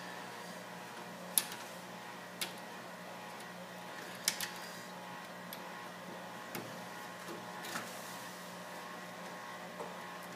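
Hands working cables and small plastic connectors inside a computer case: a few sharp clicks and taps, most of them in the first half. Under them runs a steady low hum.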